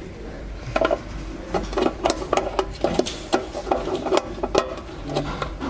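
Portable pneumatic dot peen marking machine at work, its marking head moving over a metal plate with a run of irregular mechanical clicks and short whirs, starting about a second in and easing off near the end.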